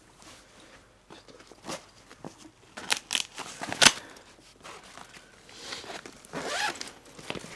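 Rustling and crinkling of a fabric pet carrier and a mesh laundry net being handled, with a few sharp clicks about three to four seconds in, the loudest near four seconds. A brief wavering squeak comes near the end.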